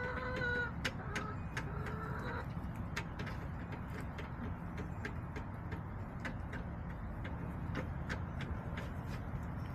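Backyard hens giving two drawn-out calls in the first two seconds or so, followed by frequent sharp taps and clicks, over a steady low background noise.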